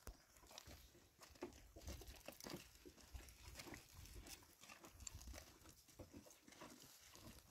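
Near silence with faint, scattered clicks and rustling.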